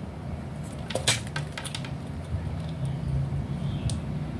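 A few light clicks and taps, as multimeter probe tips are handled and set onto a power-adapter circuit board; the loudest comes about a second in, with another near the end, over a steady low hum.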